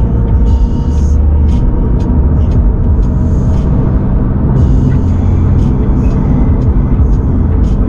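2022 Subaru BRZ's 2.4-litre flat-four, fitted with headers, running steadily on the road, with a heavy low drivetrain and road rumble and scattered short clicks on top.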